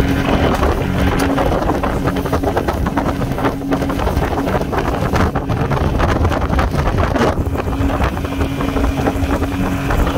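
Outboard motor running at speed, driving an aluminum fishing boat, with a steady engine drone over rushing water and wind buffeting the microphone.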